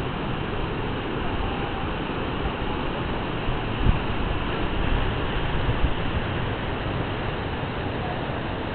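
Ocean surf breaking, a steady rushing wash of whitewater, with a brief low thump about four seconds in.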